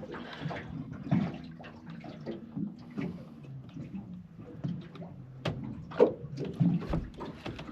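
Water sloshing and splashing, with scattered sharp clicks and knocks of handling on a small fishing boat.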